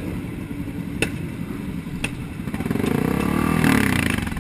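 Sport motorcycle engines idling, with two sharp clacks about a second apart; from about halfway one engine revs up and back down, the loudest part.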